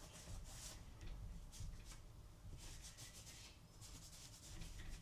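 Cloth damp with disinfectant wiping the inside of a MacBook Pro laptop, a few short, faint rubbing strokes.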